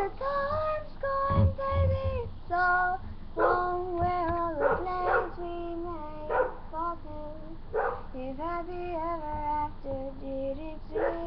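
A high voice singing without words: a string of short, sliding notes, each lasting about half a second to a second.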